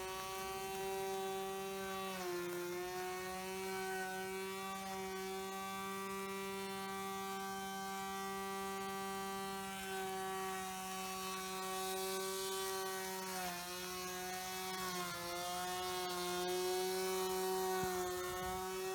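Homemade robot lawnmower's electric motors, with a spinning hacksaw-blade cutter, running with a steady whine. The pitch sags briefly three times, about two, thirteen and fifteen seconds in.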